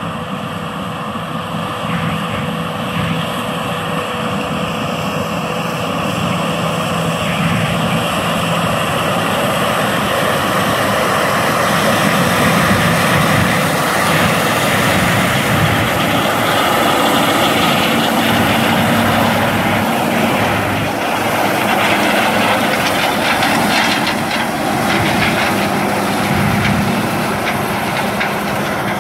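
Combine harvester running steadily under load while harvesting corn with an eight-row corn head: a dense, continuous mix of engine and machinery noise with a few faint steady whines.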